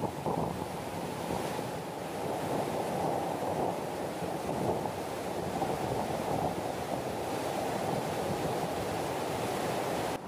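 Heavy overflow from a reservoir rushing down a rocky spillway channel: a steady, full rush of white water.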